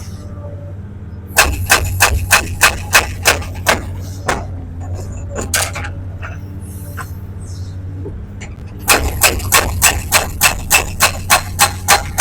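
Hydraulic breaker on a Sany SY335C excavator hammering stone: two runs of rapid, evenly spaced blows, about three a second, the first starting about a second and a half in and lasting some three seconds, the second starting about two-thirds of the way through. Under it the excavator's diesel engine runs steadily.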